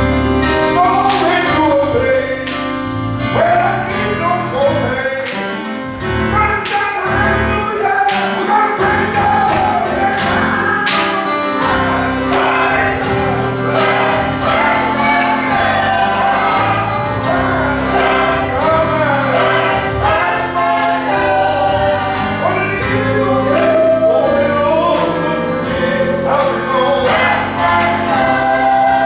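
Gospel song: choir and lead voices singing over a band with a steady drum beat.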